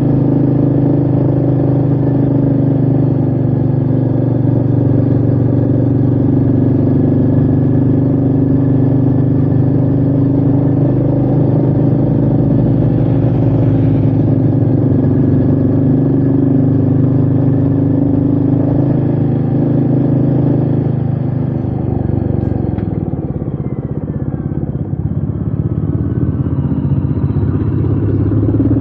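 Royal Enfield Meteor 350's single-cylinder engine running steadily under way at a constant engine speed. About three-quarters of the way through the revs drop and the sound eases off briefly, then the engine picks up again near the end.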